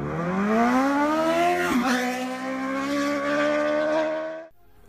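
Sport motorcycle engine accelerating hard, its revs rising steadily, with a brief dip in pitch just under two seconds in, as at a gear change, then held at high revs before cutting off suddenly near the end.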